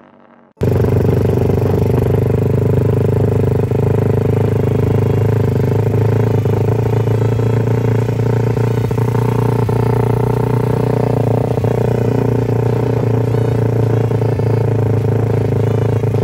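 Suzuki Raider 150's single-cylinder four-stroke engine running steadily as the motorcycle is ridden at an even speed, its pitch holding level. It comes in abruptly about half a second in.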